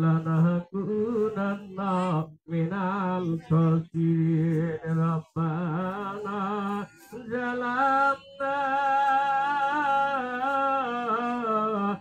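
A man chanting Islamic devotional verses unaccompanied, in short sung phrases, then one long wavering note held over the last four seconds or so.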